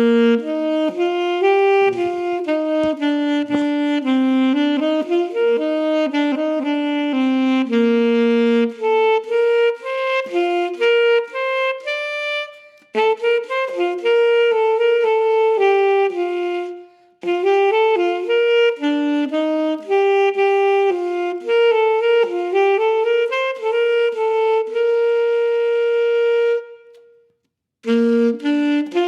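Unaccompanied solo saxophone playing a slow melody one note at a time, with short breaks between phrases.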